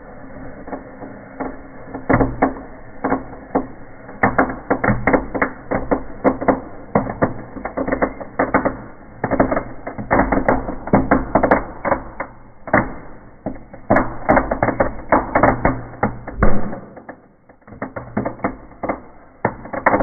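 Firework crackling as it burns in a fireplace: dense, irregular sharp cracks and pops that come in rapid clusters over a steady low hum, easing off briefly before picking up again.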